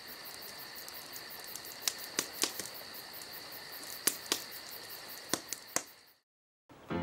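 Crickets chirping: a steady high trill with rapid even pulsing above it, with a few sharp loud clicks scattered through. It cuts off about a second before the end.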